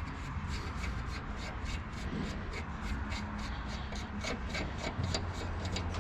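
Fast, even scraping or rubbing strokes of a hand tool, about five a second, over a steady low hum.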